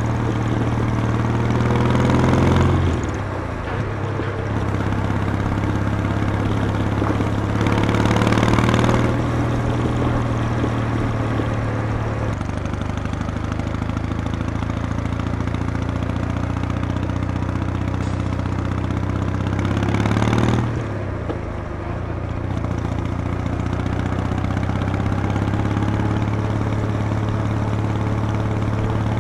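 Kawasaki W800's air-cooled parallel-twin engine and exhaust running while riding. The engine note rises three times, at the start, about eight seconds in and about twenty seconds in, and falls off sharply after each rise.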